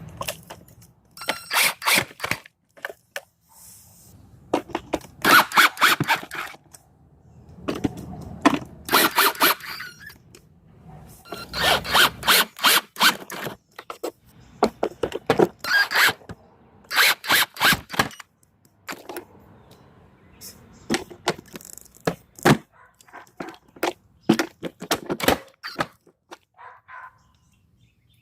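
Metal hand-tool work on a TroyBilt self-propelled mower's deck: repeated bursts of sharp clicks and scrapes, several to a burst, while the belt protector's screws are worked.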